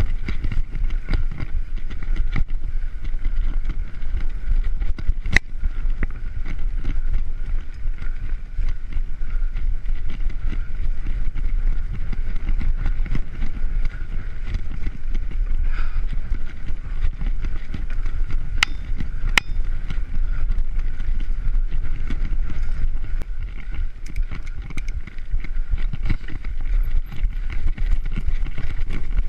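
Mountain bike ridden over a rough dirt trail, heard from a handlebar-mounted camera: a steady low rumble of wind and vibration on the microphone, with frequent rattling clicks and knocks from the bike over bumps and a few sharper clicks about five seconds in and near the two-thirds mark.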